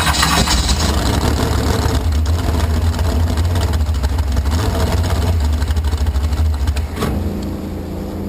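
Cracker box racing boat's inboard engine running at low speed under load as the boat is driven up onto its trailer. About seven seconds in there is a short sharp sound, and the engine sound drops to a quieter, steadier hum.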